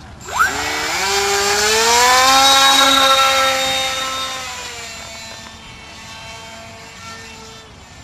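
Electric motor and propeller of a Blu-Baby foam RC plane throttling up sharply at hand launch about half a second in, a high whine with several overtones. It holds loudest for a couple of seconds, then fades and drops slightly in pitch as the plane climbs away.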